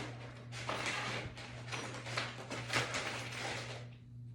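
Scrapes, rustles and light knocks of hand tools being picked up and handled while a fitting wrench is sought for the bike's bolts, over a steady low hum.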